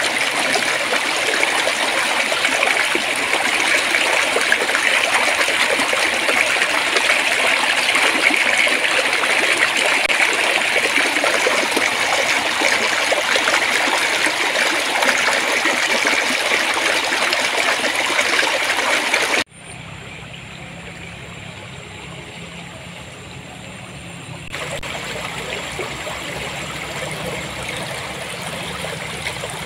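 Clear water flowing and babbling in a stream, a steady rushing hiss. About two-thirds through it cuts off suddenly to a quieter, lower flow, which steps up again a few seconds later.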